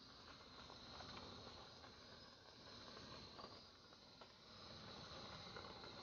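Near silence: faint steady hiss of room tone, with a few faint ticks.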